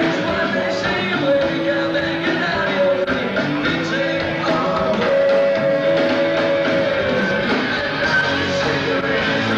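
Rock band playing live, with drums, electric guitars and singing, recorded from the audience.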